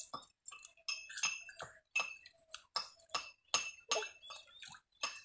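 Freshwater snail shells clinking against a small steel bowl and steel basin as they are rubbed and washed clean of sand: repeated sharp clinks, two or three a second, each with a brief metallic ring.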